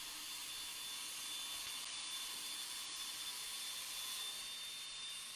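Steady hiss with a faint high whine underneath, even throughout.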